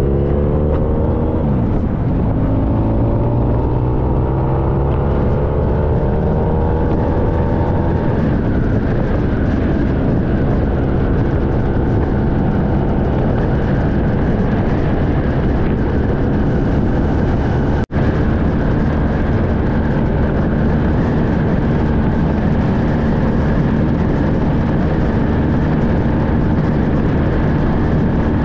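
Honda VFR1200X V4 engine pulling under acceleration, its pitch rising over the first several seconds and then holding steady at highway cruising speed, under constant wind and road noise. The sound cuts out for an instant about two-thirds of the way through.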